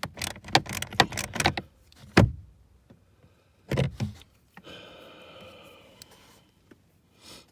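Ratchet and socket working on the heater blower motor screws up under the dash: a quick run of clicks and knocks, then a single loud thump a little over two seconds in and another knock near four seconds.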